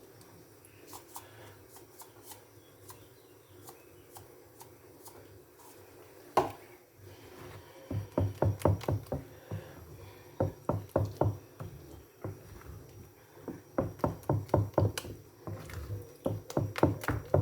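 A spoon stirring thick bean batter in a bowl for moi-moi. After a knock, the stirring comes in several bursts of quick strokes, about four or five a second, each one tapping the bowl.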